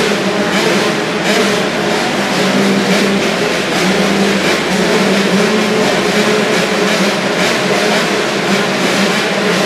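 A line of 85cc two-stroke motocross bikes running at the starting gate, engines idling and blipping in quick revs together in a loud, steady, buzzy din.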